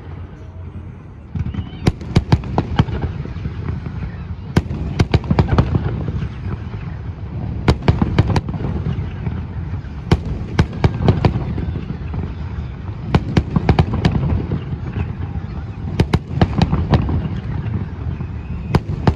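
Fireworks display: aerial shells bursting in quick clusters of sharp bangs every two to three seconds over a continuous low rumble. The bangs begin about a second in.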